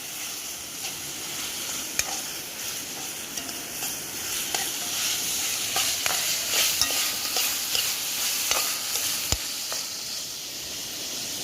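Saltfish and seasonings frying in hot oil in a pot, sizzling steadily, while a spoon scrapes and clinks against the pot as it is stirred.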